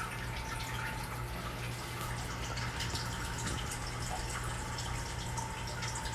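Fish tank water trickling and dripping steadily, over a steady low hum.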